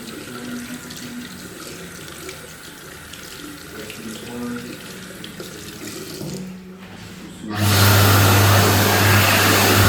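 Electric hand dryer switching on about seven and a half seconds in and then running loud and steady, a strong blast of air over a deep motor hum. Before it there is quieter washroom noise like a tap running.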